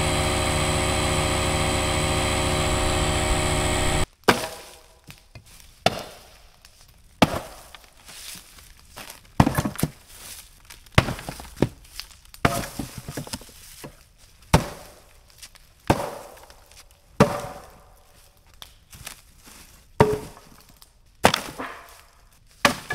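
An engine running steadily cuts off abruptly about four seconds in. Then comes a long series of sharp blows on wood, about one every second and a quarter, each with a short ringing tail.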